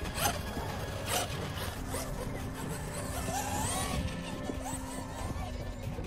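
Electric radio-controlled trucks driving on grass, their motors whining and changing pitch as the throttle goes up and down, with a few short knocks near the start.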